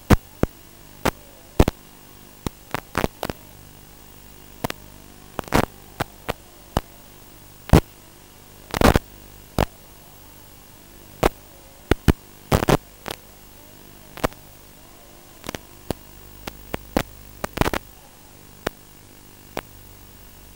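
Static on the audio channel of an analog 5.8 GHz FPV video link: a steady hiss and faint hum broken by irregular sharp crackles and pops, several a second at times, the loudest crackle about nine seconds in.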